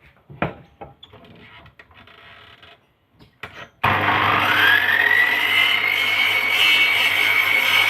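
A few light knocks and handling sounds, then an electric power tool switches on about four seconds in: its motor whine rises as it spins up and then runs steadily at speed.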